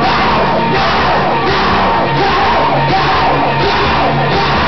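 Rock band playing loud live music, with yelled singing over guitar and a steady driving pulse. Heard through a camcorder's microphone in the crowd, dull and without highs.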